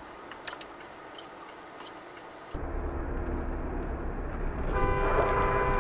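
Faint hiss with a couple of ticks, then from about two and a half seconds in the low rumble of a car driving. Near the end a car horn starts sounding steadily.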